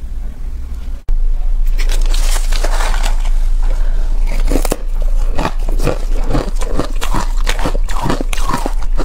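Close-miked biting and crunching of carbonated ice discs, a quick run of crisp, crackly crunches that starts about a second in.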